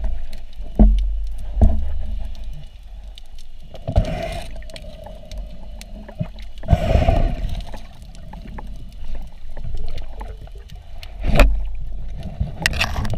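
Muffled underwater handling noise on a spearfisher's camera: a steady low rumble with dull thumps against the housing, two in the first two seconds and a loud one late on, and two longer rushing, bubbling swishes of moving water around the middle.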